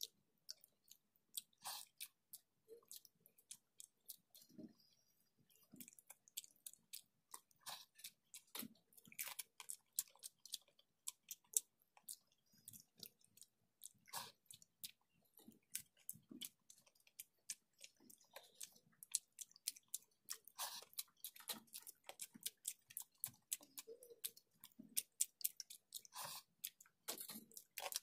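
Chewing and crunching of fried bitter gourd (karela) chips with rice, eaten by hand: a faint, irregular run of short crunches and wet mouth clicks.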